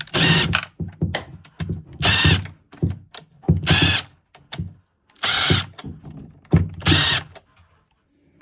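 A power drill-driver run in five short bursts of about half a second each, one every one and a half to two seconds, with small knocks and clicks between them.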